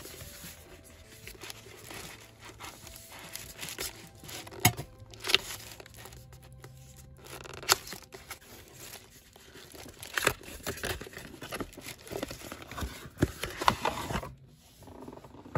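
Cosmetics packaging being opened by hand: paper or plastic wrapping tearing and crinkling, with a scattering of sharp clicks and taps as the box is handled.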